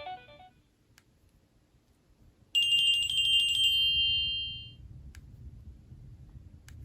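Nokia N91 alert tone from the phone's speaker: a short, high chime with a fast trill that starts about two and a half seconds in and rings out, fading away over about two seconds. The tail of the previous tone dies away at the start, and a couple of faint clicks follow near the end.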